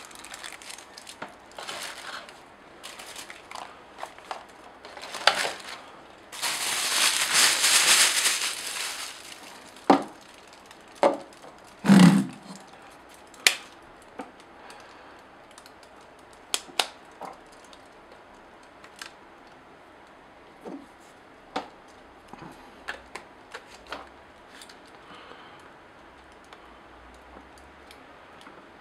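Clear plastic wrapping crinkling, loudest for a few seconds near the start, amid scattered clicks and knocks from handling a camera body and battery, with one heavier knock about twelve seconds in.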